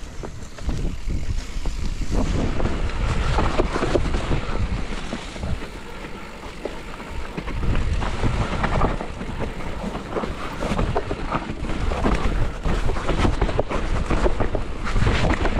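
Wind rushing over the microphone of a riding mountain biker, with a constant low rumble and many short knocks and rattles as the bike rolls over rough, wet trail. It gets louder about two seconds in.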